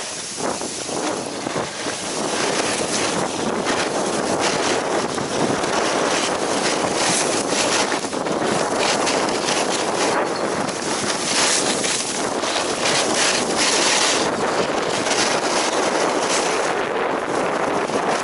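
Wind buffeting the microphone, with skis scraping and hissing over hard-packed groomed snow during a fast downhill run. The rush builds over the first couple of seconds as speed picks up, then holds steady with short scraping bursts on the turns.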